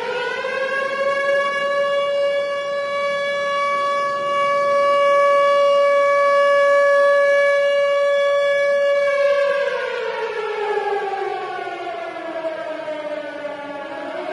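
Siren wailing: its pitch climbs over the first second or so, holds one steady tone for about eight seconds, then slides slowly down and begins to rise again at the very end.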